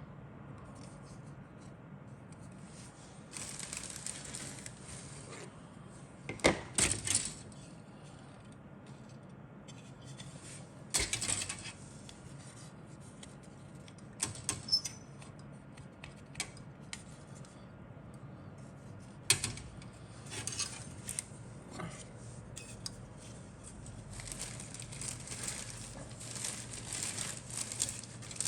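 Hard plastic model-kit parts and sprues being handled, clicking and clattering against each other every few seconds, with plastic bag rustling near the end.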